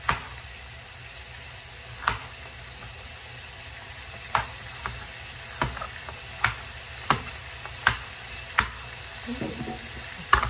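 Tomato and onion frying in oil in a pan: a steady sizzle. About ten sharp knocks at irregular intervals, roughly one a second, come from a knife cutting zucchini on a cutting board.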